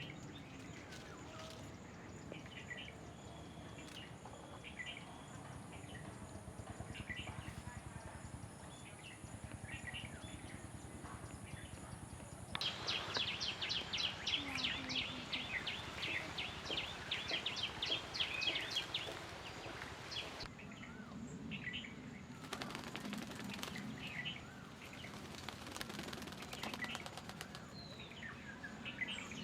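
Indian ringneck parakeet calling in short, high chirps, scattered at first, then a fast, dense run of calls from about 13 to 20 seconds in, and scattered again after.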